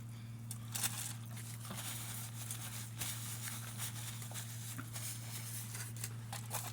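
A steady low hum with a few short clicks and soft rustles scattered through it at irregular moments.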